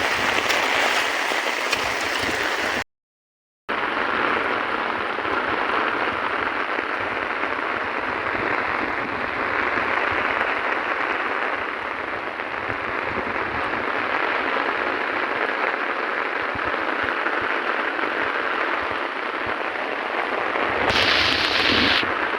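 Heavy rain pouring down in a steady hiss, cutting out completely for under a second about three seconds in and growing harsher and louder for a moment near the end.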